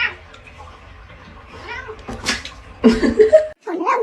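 Domestic cat meowing in a few short calls, then a long, wavering yowl that starts near the end.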